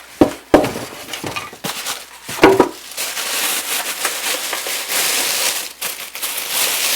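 A newly unboxed double breakfast sandwich maker and its packaging being handled: a few sharp knocks in the first three seconds, then steady rustling and crinkling of packaging.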